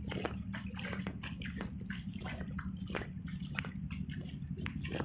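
Water sloshing and splashing, with many small irregular splashes over a steady low hum.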